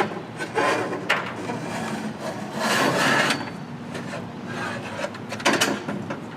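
A knock, then several bursts of scraping and rubbing, the longest about three seconds in.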